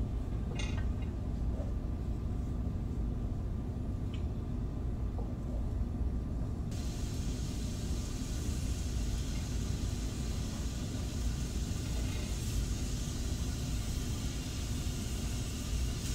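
Raw hamburger patties being laid into a hot pan, with a couple of soft knocks; from about seven seconds in a steady sizzle of the meat starting to brown. A steady low rumble runs underneath throughout.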